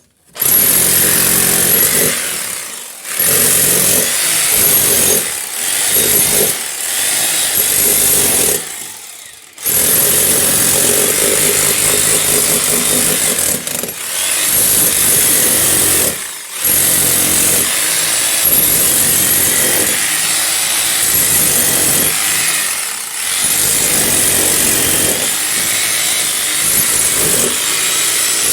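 Electric hammer drill breaking into a masonry wall, running in long loud bursts that stop briefly about four times as the operator pauses and resets.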